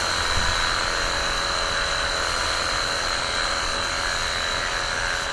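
Cordless electric pressure washer's pump motor running steadily while spraying, a constant high-pitched whine over a hiss.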